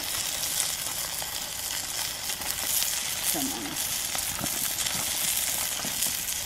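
Burger patties and scallops sizzling steadily on aluminium foil over a wood fire, with scattered small pops, as a thin stream of liquid is poured onto the patties.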